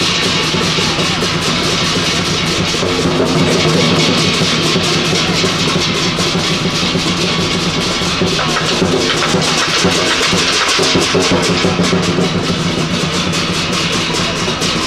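Chinese lion dance percussion: a big drum beaten in a fast, continuous rhythm with crashing cymbals, loud throughout.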